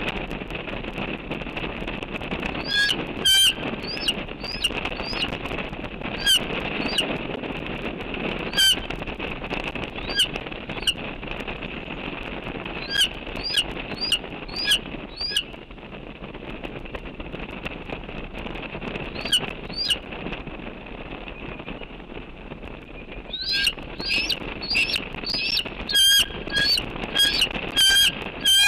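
Bald eagle calling: short, high-pitched, quavering notes, scattered at first, then a quick chittering run of them near the end, over a steady background hiss.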